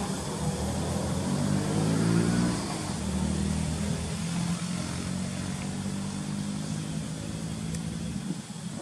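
An engine running, rising in pitch over the first two or three seconds, then holding steady and fading near the end.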